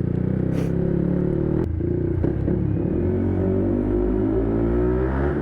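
Yamaha MT-125 single-cylinder 125 cc four-stroke engine running under way through an Arrow aftermarket exhaust, a steady drone that climbs slightly in pitch in the second half.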